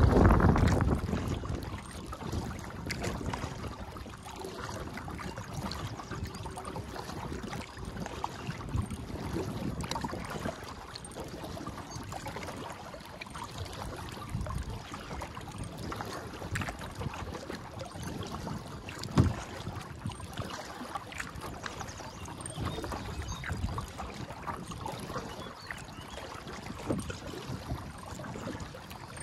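Kayak paddling on calm water: paddle strokes with water splashing and dripping, and small irregular knocks, one sharper than the rest about two-thirds of the way through. Wind buffets the microphone in the first second.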